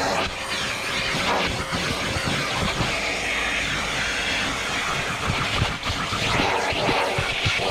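Vacuum cleaner running steadily, its nozzle working over car interior carpet, with the suction noise flickering as the nozzle moves and presses against the surface.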